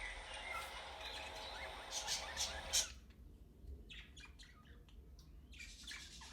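Budgerigars chirping, with a cluster of louder chirps about two seconds in, then fainter chirps.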